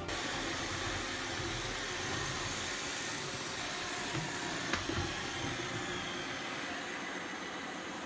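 iRobot Roomba 675 robot vacuum running: a steady whirring hiss from its suction and spinning brushes. A sharp click and a couple of small knocks come about halfway through.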